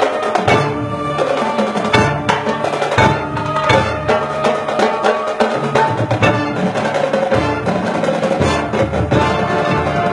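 Marching band playing: held chords from the winds over frequent drum and percussion strikes.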